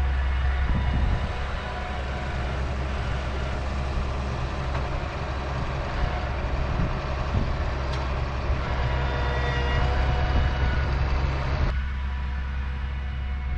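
Farm tractor engine running steadily, a constant low drone with higher whining tones above it.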